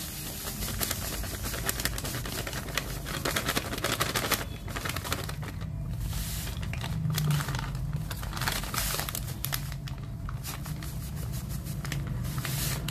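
Granulated sugar being poured from a plastic bag into a metal bowl: the bag crinkles and the grains rattle and hiss into the bowl in a steady stream, easing off briefly a couple of times.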